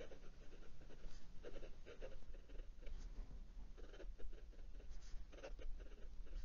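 Fine Bock nib of a Moonman M1000 fountain pen scratching across lined notepad paper in short, irregular cursive strokes, several a second.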